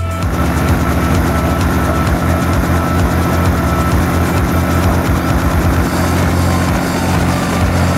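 Helicopter in flight: a loud, steady engine and rotor drone with a fast low throb.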